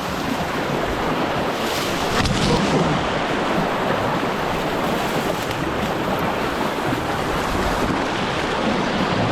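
Strong wind blowing hard across the microphone, a steady dense rush, with lake waves washing on the shore beneath it.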